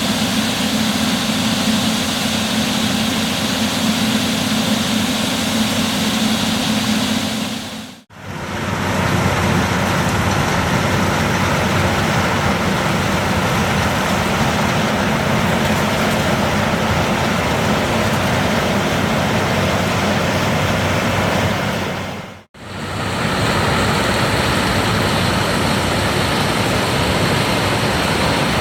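New Holland CR 11 combine harvesters running steadily while harvesting soybeans: a dense, even mix of engine and threshing machinery noise. It drops out sharply and briefly twice, where the shot changes, and the low hum is stronger before the first break.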